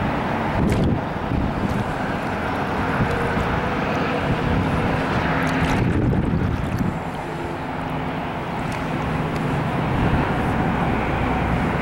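Steady rumbling noise of wind on the microphone mixed with the hum of highway traffic, with a couple of faint clicks about a second in and again about six seconds in.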